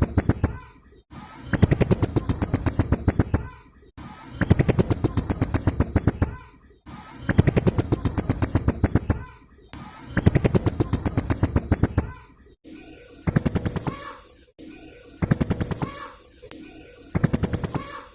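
Blue-crowned hanging parrot (serindit) singing rapid rattling strings of sharp, high notes, about seven a second, each string about two seconds long and repeated every three seconds. From about 13 seconds in the strings shorten to about a second, with softer chirps between them.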